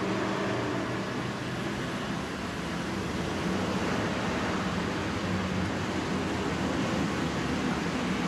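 Steady street traffic noise, with a vehicle engine running.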